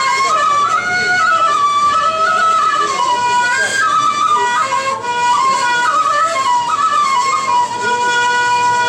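Flute playing a winding, ornamented traditional melody with slides between notes, settling on a long held note near the end.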